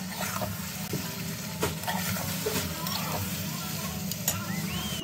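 Chicken pieces being stirred with a spatula through a thick onion-tomato masala in a kadhai, sizzling, with a couple of sharp knocks of the spatula against the pan.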